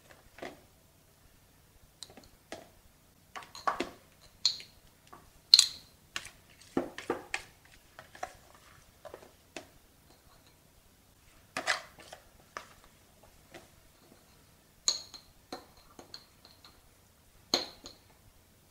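Metal spoon scraping a plastic bowl and pushing tiny fish into a glass jar: irregular scrapes and taps, a few of them short ringing clinks of the spoon against the jar's glass.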